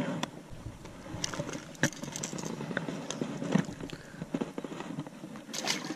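Irregular light clicks and knocks, the handling noise of a just-caught smallmouth bass being swung aboard an inflatable raft and gripped by the lip.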